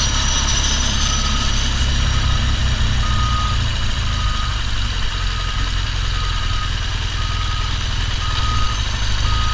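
A vehicle's reversing alarm beeping, short single-pitched beeps a little under a second apart, from a vehicle backing onto the ferry. Under it the low, steady running of a BMW GS Adventure motorcycle's engine as it rolls slowly.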